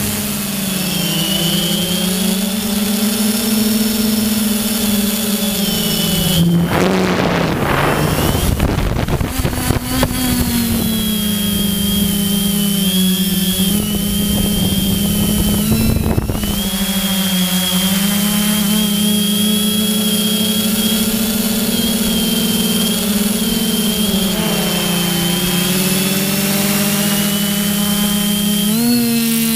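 Motor and propellers of an FPV aircraft heard from its onboard camera: a steady drone with a high whine that rises and falls a little with throttle. A gust of rushing air about six to ten seconds in, and again briefly near the middle.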